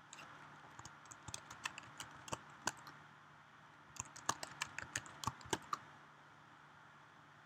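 Computer keyboard typing: two short runs of quick, irregular key clicks with a brief pause between them.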